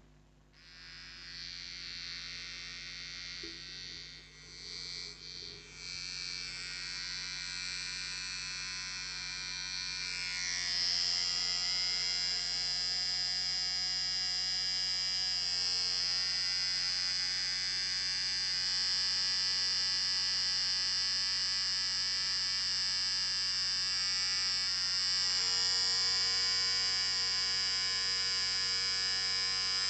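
Electric beard trimmer switched on and buzzing. Its level wavers for the first few seconds, grows louder until about ten seconds in, then holds steady.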